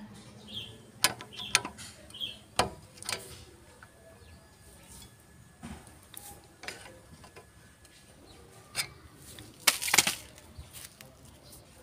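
Scattered sharp metal clicks and knocks from a screwdriver working on a car's rear brake adjuster, with the loudest cluster near the end.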